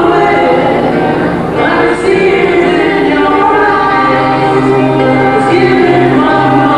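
A small group of young male voices singing a song together in harmony into microphones, held notes over a steady low accompaniment from acoustic guitars.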